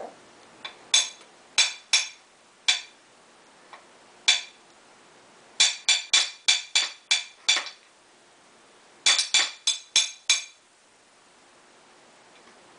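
A toddler's plastic spoon tapping on a plate, each tap clicking with a short ringing tone. A few scattered taps come first, then two quick runs of about three to four taps a second, stopping about ten and a half seconds in.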